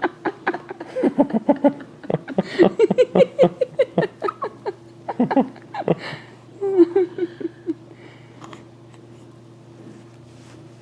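Soft laughter: a run of short pitched vocal pulses from about a second in until nearly eight seconds, then only a low steady hum.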